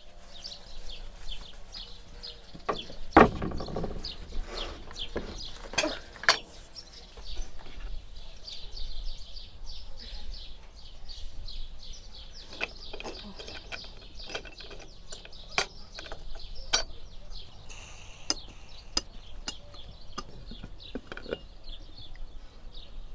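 Small birds chirping steadily, with sharp metal clunks and clicks from an aluminium Afghan pressure cauldron. The loudest clunk with a thud comes about three seconds in as the cauldron is set down; further clicks follow as its screw-clamped lid is unlatched and lifted off.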